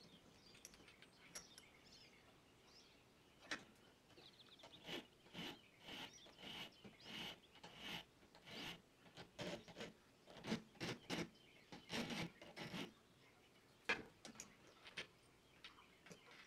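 Hand file rasping across the saw-cut edge of a small metal angle bracket held in a bench vise, deburring the cut. The strokes come about two a second through the middle, with a few sharp clicks before and after.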